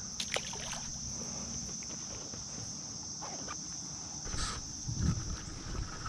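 Steady high-pitched insect chorus, with a few light knocks and clicks.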